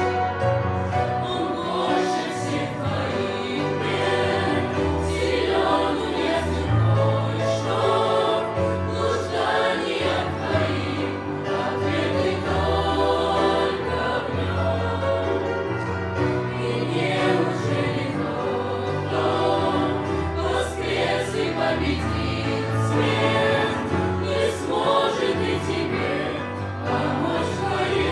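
A choir singing a Christian song with instrumental accompaniment, over a bass line of held notes.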